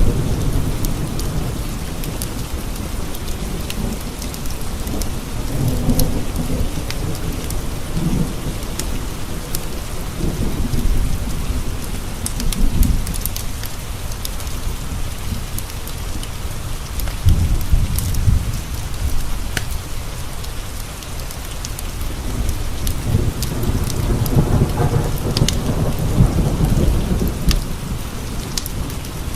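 Steady heavy rain pattering on window glass, with rolling thunder rumbling low and swelling and fading several times, and scattered sharp ticks over the hiss.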